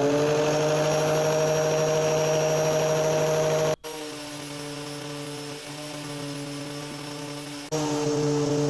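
Black and Decker angle grinder with a sanding disc running at speed, a steady motor whine with several held tones, as wax crayons are ground against the disc. The sound cuts off sharply about four seconds in and comes back quieter, then jumps back to full level near the end.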